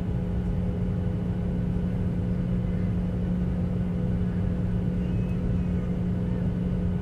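Boeing 737 cabin noise while taxiing: the turbofan engines at idle give a steady drone with a strong low hum and a rumble, heard from inside the cabin.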